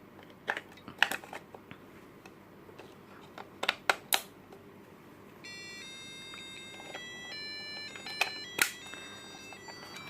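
Sharp plastic clicks and knocks as AAA batteries are pushed into a cube digital alarm clock, then, about five seconds in, the clock powers up and plays an electronic tune of beeping tones stepping from pitch to pitch.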